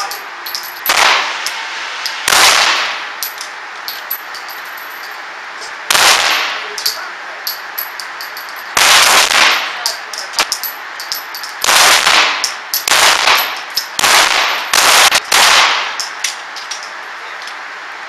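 Smith & Wesson M&P Shield pistol fired one shot at a time, about ten shots with uneven gaps between them. Each report echoes in the enclosed indoor range.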